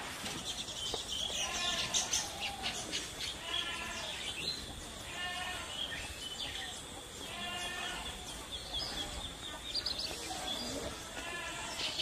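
Baya weavers calling at their hanging nests: repeated runs of chattering chirps every second or two, with thin high chirps in between.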